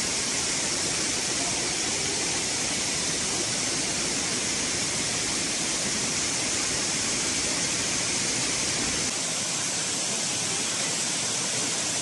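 Steady rush of water from the Sopotnica waterfall cascades tumbling over mossy rocks.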